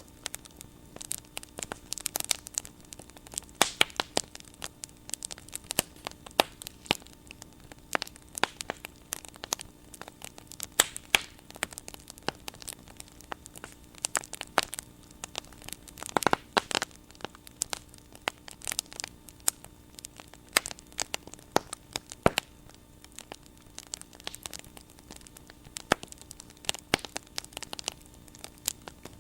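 Wood bonfire burning, popping and crackling in irregular sharp snaps, with a steady low hum beneath.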